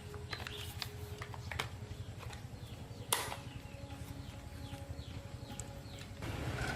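Irregular light clicks and taps, with one sharper knock about three seconds in, over a low steady hum.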